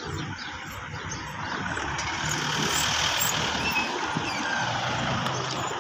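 Road traffic: a motor vehicle's engine hum and tyre noise, swelling a little about two seconds in.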